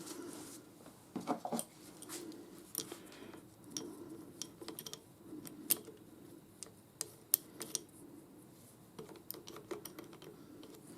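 Scattered light metallic clicks and taps of small steel lathe parts and hand tools being handled during reassembly of the tool slide, over a faint steady hum.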